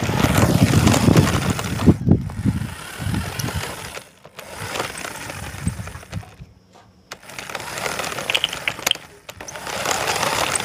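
RC car running fast over rough, gritty ground, its motor, wheels and body rattling and rumbling, heard close up from a phone camera strapped onto the car. It is loudest in the first two seconds, nearly drops out about four seconds in and again around six and a half seconds, then picks up again with rattling and a few clicks.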